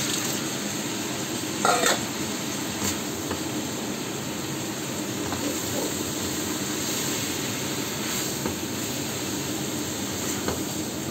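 Papaya chunks and meat sizzling in a nonstick wok over a gas burner, with a steady hiss, while a spatula stirs and scrapes through them. A sharp clatter about two seconds in is the loudest sound.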